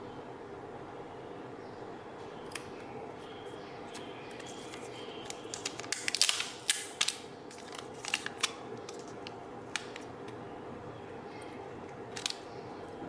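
Packaging being handled during an unboxing: scattered sharp clicks, with a dense run of crinkles and clicks between about five and a half and eight and a half seconds in, over a steady low hum.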